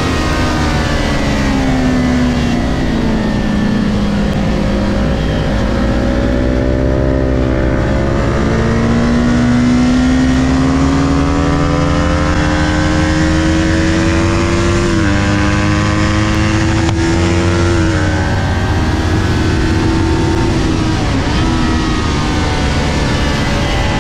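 Kawasaki Ninja 400's parallel-twin engine at racing revs. The pitch falls as the bike slows for a corner, then climbs steadily under hard acceleration. It drops sharply at a gear change a little past halfway, then falls and climbs again twice more through the next corners.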